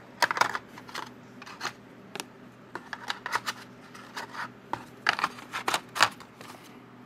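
Packaging and accessories being handled: irregular crinkles, light clicks and taps, bunched in a few short flurries.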